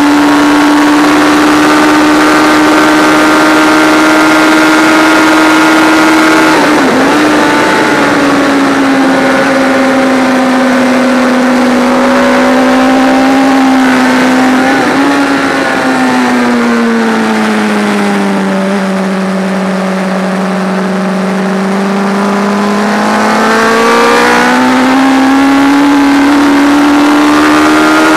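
Classic racing motorcycle engine running at high revs under way, heard from on the bike with wind rush. The engine note holds high with a brief dip about seven seconds in. It then sags to a lower pitch through the middle as the revs drop, and climbs again near the end.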